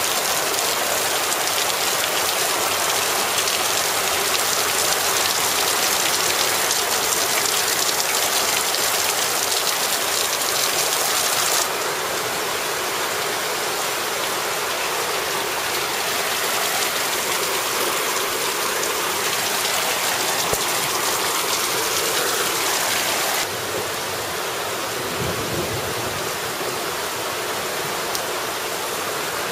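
Heavy rain pouring down in a steady, dense hiss. It drops slightly in loudness twice, about twelve seconds in and again near twenty-three seconds.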